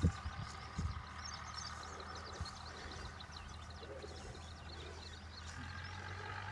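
Faint outdoor ambience: a steady low hum with scattered faint, short high chirps.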